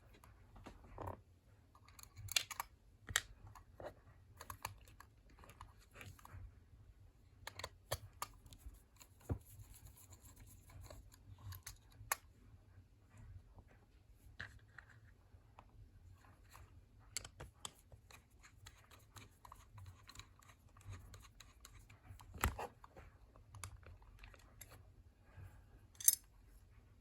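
Scattered small clicks and taps of a screwdriver undoing the eight small screws that hold the cover on a Defiant Squire lever lock.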